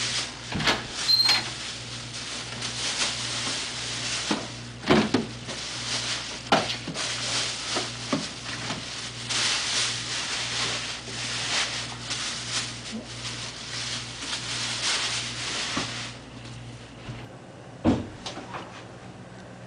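A pantry door opening and things being handled on the shelves: a paper bag crackles and rustles over several seconds, with scattered knocks and clunks. A steady low hum runs underneath and stops about three-quarters of the way through.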